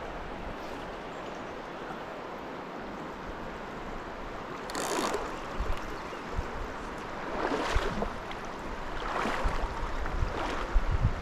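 Steady rush of flowing stream water, with a few short louder bursts of noise about five, eight, nine and ten seconds in.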